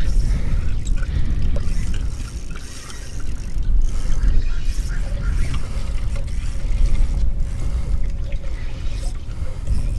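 A fishing reel working against a hooked tarpon, its gears and drag ratcheting while the fish is fought on light braided line, over a steady low rumble.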